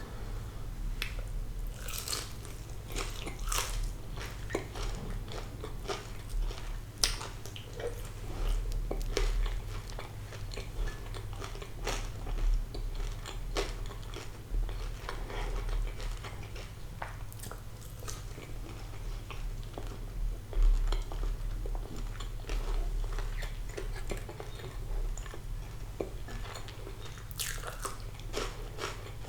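Close-miked biting and chewing of crispy fried sea bass: irregular crunches and wet chewing, a few louder bites, over a steady low hum.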